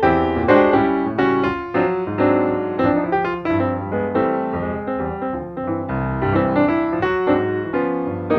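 Instrumental piano music: a busy run of quick piano notes over a steady low bass line, from a jazz-flavoured film score.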